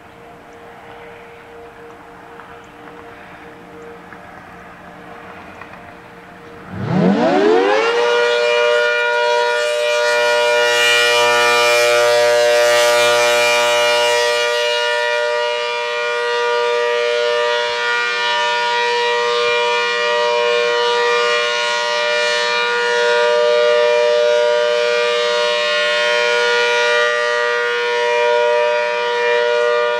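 ACA Hurricane 130, an 8/10-port tornado siren, winding up about seven seconds in. Its pitch rises fast, then holds a loud, steady chord for the alert signal. Before it starts, a fainter distant siren holds a steady tone.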